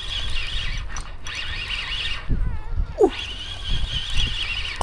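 Fishing reel whirring in three short spurts of a second or so each, high-pitched, as line is wound in on a hooked conger eel.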